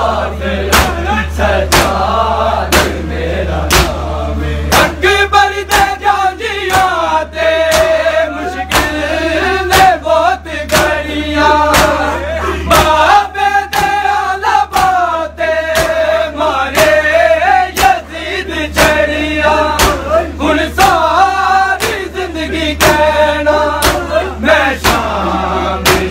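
A crowd of men chanting a noha lament in unison, with sharp, regular slaps of hands on bare chests (matam) nearly two a second. A steady low hum runs underneath.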